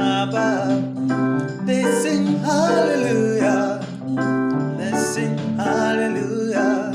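Gospel song: a singing voice with vibrato over held keyboard chords.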